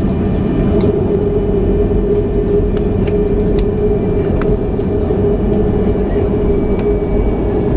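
Steady cabin noise of a Boeing 737-500 rolling on the ground after landing, its CFM56 engines at low power: an even low rumble with a steady hum, and a few light clicks.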